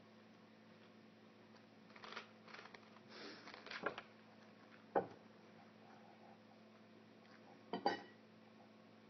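Scattered clinks and knocks of dishes and cutlery at a table over a steady low hum: a run of small clicks, then one sharp click about five seconds in and two quick knocks near the end.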